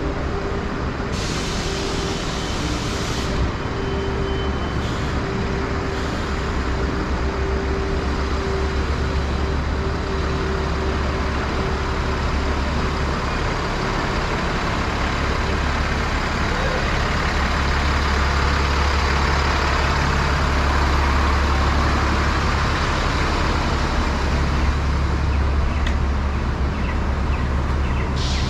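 Street traffic dominated by a heavy truck's engine rumbling as it drives slowly past close by, louder in the second half. A hiss of air lasting about two seconds comes about a second in.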